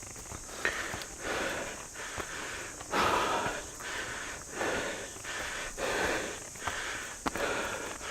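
A hiker breathing hard and fast after a steep uphill climb, in rapid heavy breaths. The loudest breath comes about three seconds in.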